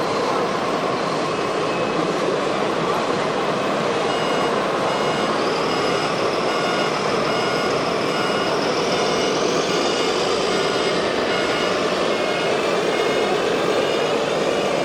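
RC truck running with a steady motor and gear whine, a higher whine rising in pitch partway through, and a high backup beeper sounding about every two-thirds of a second from about four seconds in.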